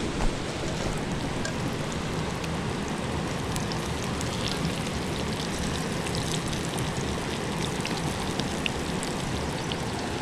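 Cornmeal-breaded catfish pieces frying in hot oil in a cast-iron skillet: a steady sizzle, with a few light clicks of metal tongs against the pan.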